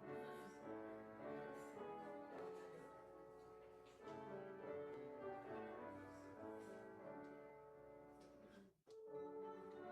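Quiet instrumental music playing slow, held chords, with a brief break about nine seconds in.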